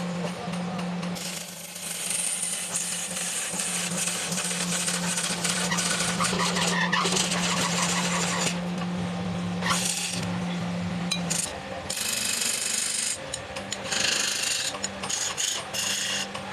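Belt-driven wood lathe's motor humming steadily while a hand-held turning chisel cuts into the spinning wooden disc, a harsh scraping that comes in bursts of a second or more and breaks off in between.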